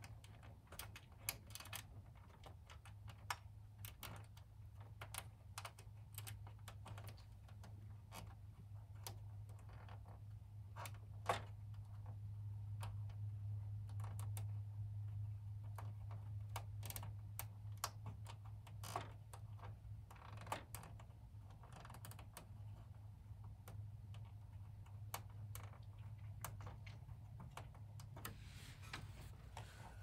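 Irregular small clicks and taps as a PCI graphics card is handled and pressed into its slot on a Power Mac G3 logic board, over a low steady hum.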